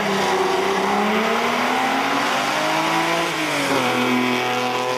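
BMW 3.0 CSL race car's straight-six engine accelerating hard out of a hairpin as the car passes close. The engine note climbs, then drops in pitch about three and a half seconds in and settles lower.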